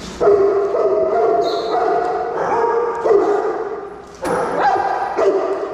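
Dogs vocalizing as they wrestle in play: a nearly continuous run of pitched barks and yips, with a short break about four seconds in.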